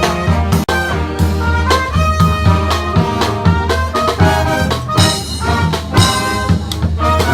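Brass street band playing live: trumpets, trombones and saxophones over a steady drum and bass beat.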